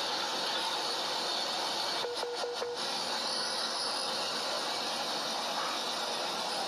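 Multi-function chopper and grinder machine running steadily, a dense mechanical noise with a brief flutter and four short blips about two seconds in.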